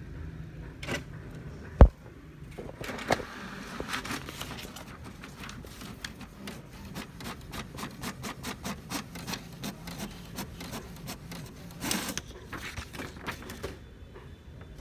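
HP DeskJet 2300-series inkjet printer printing a test page. It starts with a sharp click about two seconds in. Then come paper feed and a long run of quick mechanical ticks as the print carriage shuttles across the page, with a louder whirr near the end as the sheet is fed out.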